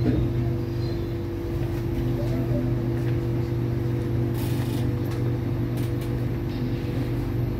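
Steady electrical hum of an SMRT C751B metro train standing at a platform, heard from inside the passenger car, with a brief hiss about four and a half seconds in.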